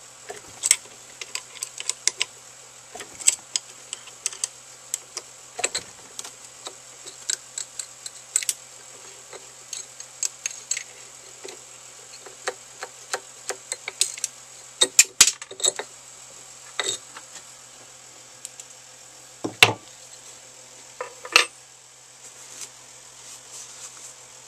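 Metal clinks and clicks from hand work at a lathe faceplate: a hex key turning its screws and metal parts tapping together. Irregular light clicks throughout, with a few louder knocks in the middle and later part, over a faint steady hum.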